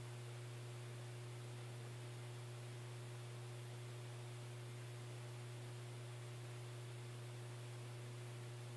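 Steady low hum with a fainter higher tone and a faint hiss, unchanging throughout.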